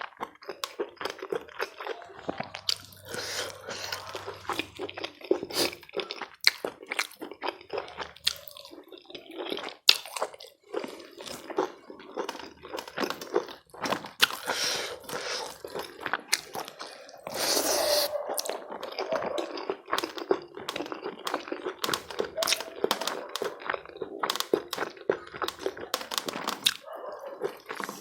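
Close-miked eating sounds of chicken curry and rice: wet chewing, lip smacks and crunching, in many irregular clicks.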